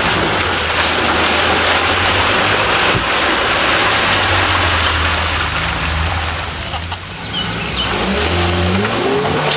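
A Mitsubishi Pajero 4x4's engine runs steadily under load as it crawls through deep mud. Near the end, a Suzuki Samurai's engine revs up, rising in pitch, as it pushes through mud.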